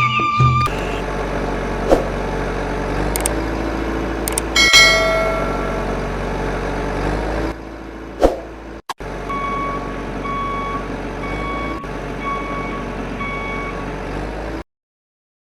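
A heavy vehicle's engine running steadily, with a brief sharp tone about five seconds in. About nine seconds in a reversing alarm starts, beeping about six times at even spacing, and all sound cuts off suddenly near the end.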